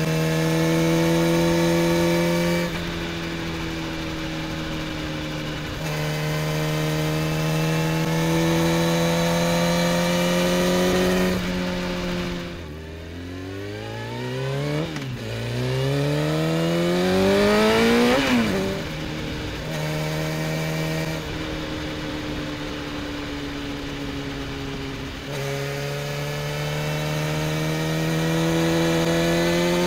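Sport motorcycle engine from an onboard camera, pulling steadily with its pitch stepping at each gear change. About halfway it falls away as the bike slows, then climbs sharply in a hard acceleration before settling back to steady running.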